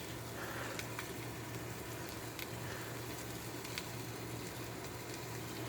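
Food sizzling on a hot gas griddle: a steady hiss with a low hum of the burner underneath and a few faint pops.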